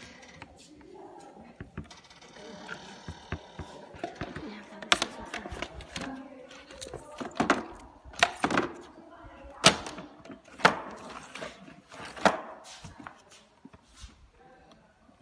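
White uPVC sliding window being handled, its sash slid back and forth in the frame: a series of sharp plastic knocks, about one a second from about five seconds in, as the sash meets the frame.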